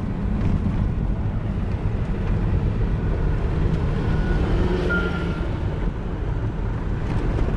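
Steady engine and tyre rumble of a car driving on a gravel road, heard from inside the cabin.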